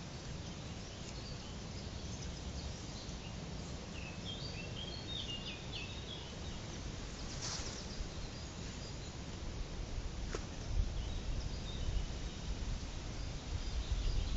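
Outdoor background noise: a steady low rumble, with a few faint bird chirps about four to five seconds in. Toward the end, irregular low bumps grow louder.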